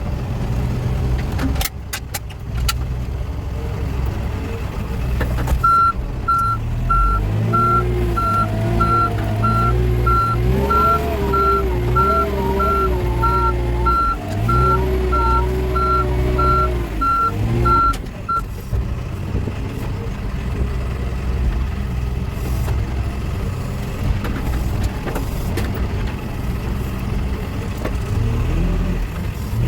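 Backhoe loader's diesel engine running throughout, its pitch rising and falling. Its reversing alarm beeps about twice a second for roughly twelve seconds in the middle as the machine backs up.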